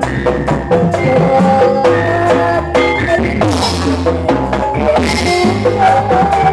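Live campursari band music: a held, wavering melody line over a steady beat of drums.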